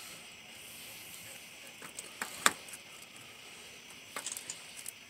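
Quiet outdoor background with a steady high hiss, broken by a few light clicks and taps. The sharpest click comes about two and a half seconds in, and a small cluster follows near the end.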